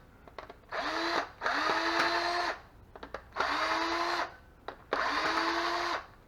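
Cordless drill-driver run in four short bursts of about a second each, the motor's pitch rising briefly as each burst spins up.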